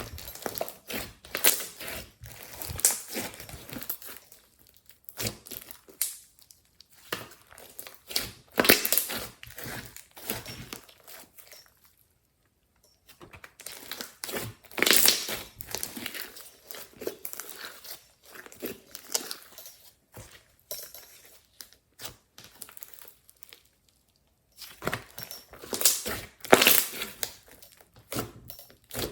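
Glossy slime squished and stretched by hand, giving sticky clicking and crackling in spells, broken by two short silent pauses.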